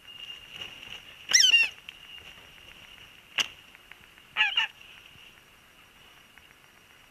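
Wedge-tailed eagle calling: two short bursts of rapid, quavering high-pitched notes about three seconds apart, with a single sharp click between them.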